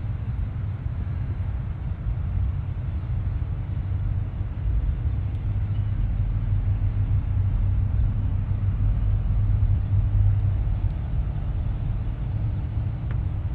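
A steady low rumble, swelling through the middle and easing toward the end.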